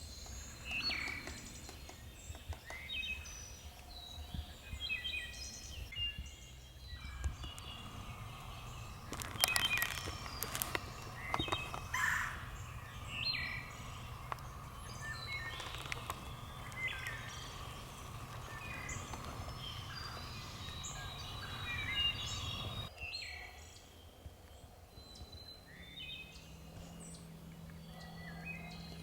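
Songbirds chirping and calling in spring woodland, with many short, high calls scattered throughout. A few sharp clicks or rustles come around the middle.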